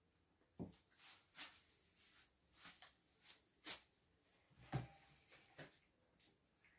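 About ten faint, irregularly spaced clicks and light knocks; the two loudest carry a dull thud, one just after the start and one about two-thirds of the way through.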